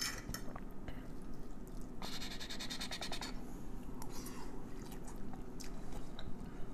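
A metal fork clicking and scraping on a plate as green beans are picked up, then a mouthful of green beans being chewed.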